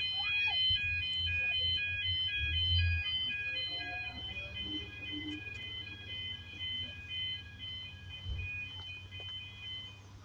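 UK level crossing audible warning alarm sounding, a two-tone yodel that alternates steadily several times a second and slowly fades. A low rumble sits under it for the first few seconds and briefly again near the end.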